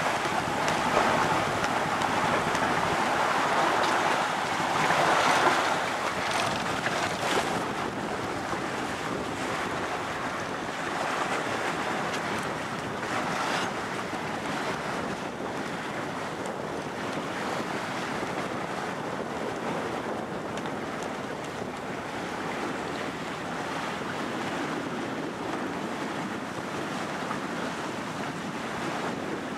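Sea water rushing and splashing past a sailing yacht's hull as it sails through choppy water, with wind buffeting the microphone. It is louder for the first several seconds, then settles into a steadier rush with occasional surges.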